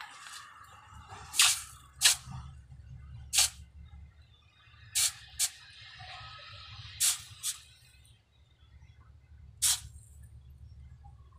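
Red-hot steel blade quenched edge-first in a trough of water to harden the edge: eight short, sharp sizzles as the edge dips in and out, with a softer steady hiss of steam between about five and eight seconds in.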